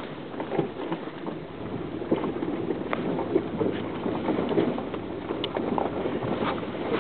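Noise inside a vehicle on a rough dirt road: a steady engine and road rumble with frequent small knocks and rattles from the jolting.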